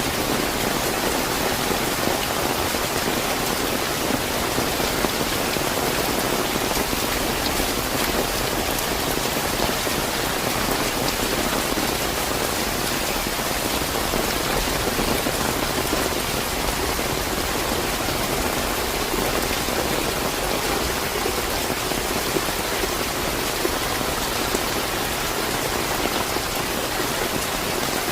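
Steady, fairly heavy rain falling and pattering on surfaces, an even hiss with fine drop ticks that stays at one level throughout.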